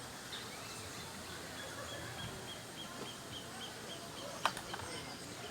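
Bird repeating a short high note about five times a second for two seconds over steady background noise, with one sharp click about four and a half seconds in.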